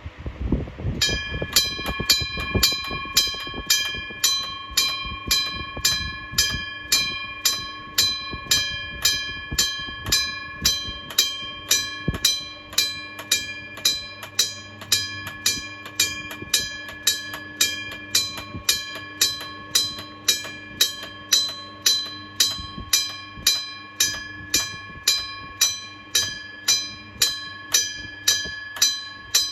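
Japanese railway level-crossing warning bell, a Kyosan electric bell, ringing its alarm. It is struck repeatedly at a steady rate of a little under two strokes a second, and each stroke rings on before the next. The ringing starts about a second in.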